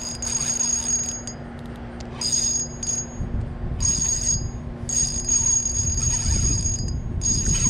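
Spinning reel's drag whining in bursts as a big hooked fish runs and pulls line off against it. The whine stops and starts several times, with a low rumble under it in the middle.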